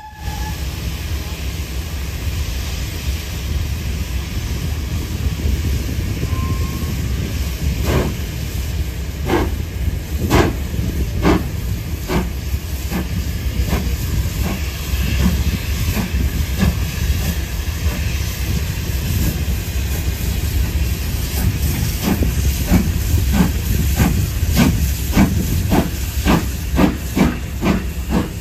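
Steam locomotive GWR Modified Hall 6990 'Witherslack Hall' starting away: a loud steady hiss of steam from its open cylinder drain cocks. About eight seconds in, exhaust beats begin, slow at first and coming steadily closer together as the engine gathers speed.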